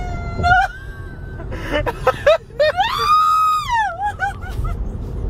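A woman's high-pitched laughing and squealing, with short squeals and one long rising-and-falling squeal about three seconds in. Steady tyre and road noise inside an electric car's cabin at motorway speed runs underneath.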